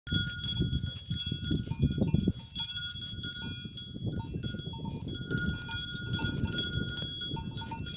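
Livestock bells clinking and ringing on grazing animals, with a steady low rumble underneath that is loudest in the first couple of seconds.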